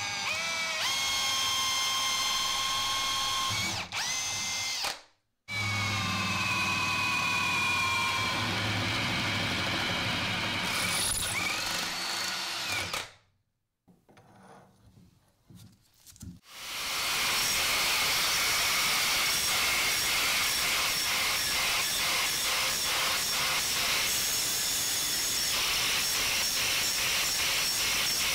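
Electric drill with a twist bit boring a hole through a thick steel plate: the motor whines up to speed and runs steadily, stops briefly, then drills on for several seconds more. After a few seconds of light handling, an angle grinder grinds the steel plate's edge with a loud, steady hiss and a fast pulsing.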